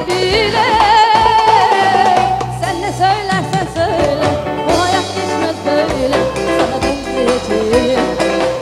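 A woman singing an ornamented, wavering melody into a microphone over band accompaniment, in a Turkish pop-folk song.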